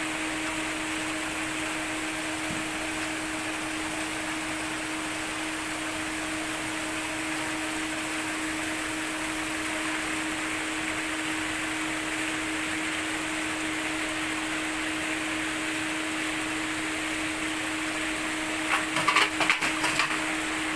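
Steady electric hum over a constant wash of churning water from a pond aerator. A quick run of sharp clicks comes near the end.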